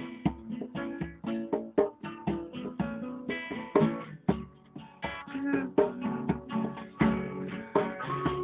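Music: a guitar plucking quick notes in a busy, rhythmic melody.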